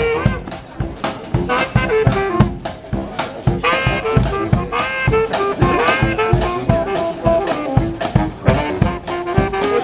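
Dixieland marching band playing: trumpet, clarinet, trombone and saxophones weave melody lines over a steady bass drum and snare beat with banjo.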